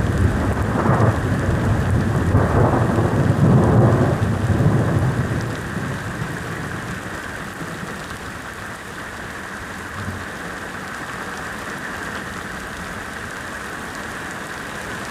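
Thunder rumbling over steady rain. The rumble is loudest in the first few seconds and dies away about six seconds in, leaving the rain falling on its own.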